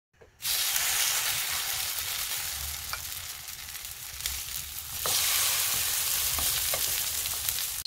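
Shredded enoki mushroom, potato and carrot batter sizzling in hot oil in a non-stick frying pan. The sizzle starts about half a second in and gets louder again about five seconds in, as a second spoonful of batter goes into the pan, with a few light taps of the utensil.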